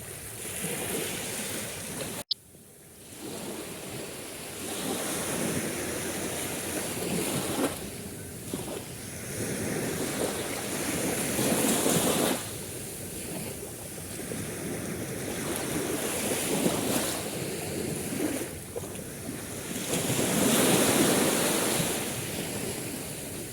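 Sea waves washing on a shore, swelling and ebbing every few seconds, with wind on the microphone. About two seconds in the sound cuts out for an instant, as at an edit, then builds back up.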